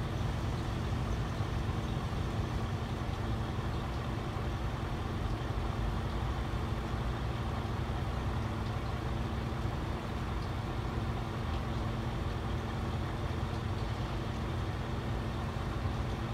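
Road vehicles idling steadily: a constant engine rumble with a steady hum, unchanging throughout.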